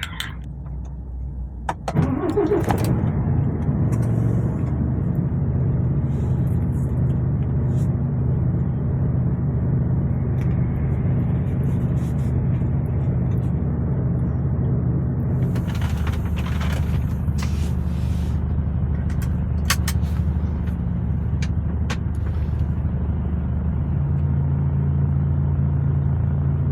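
A truck's diesel engine starts up about two seconds in and then runs steadily, its pitch shifting twice. A few short hisses and clicks come near the middle.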